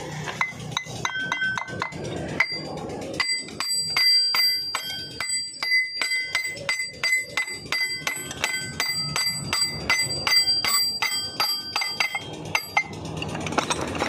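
Rapid metal-on-metal tapping, about three strikes a second, each leaving a high bell-like ring: the steel gears in a Shaktiman rotavator's gearbox being tapped into place on their shafts. Sparser, lighter clinks come first.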